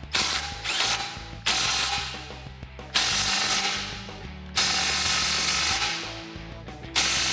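Cordless Snap-on impact wrench with a 15 mm socket hammering in five short bursts, about one every second and a half, snugging exhaust clamp nuts down.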